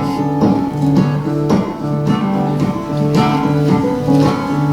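Acoustic guitar played fingerstyle, a steady pattern of plucked notes and chords with a bass line, between sung lines of the song.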